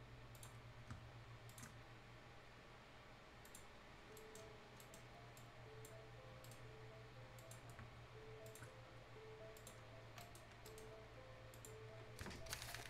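Scattered computer mouse button clicks, a few seconds apart, over a faint steady low hum, with a quick flurry of clicks near the end. A faint quiet tune of short alternating notes runs underneath from about four seconds in.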